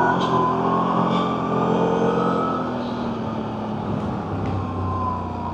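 CFMoto CForce 1000 ATV engine running steadily while riding along a trail, with a slight rise and fall in pitch.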